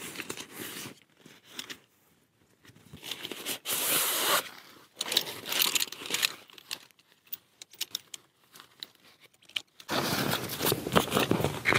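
Nylon fabric rustling and crinkling in short bursts as a folding camp chair is pulled from its stuff sack and handled, with light clicks as its shock-corded poles are fitted together. The rustling is louder and more continuous near the end.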